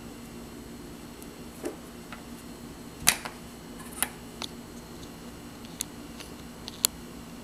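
Scattered light clicks and taps of a plastic Dorco Impact two-blade disposable razor being handled and set down on a stone countertop, about six in all, the loudest about three seconds in, over a steady low hum.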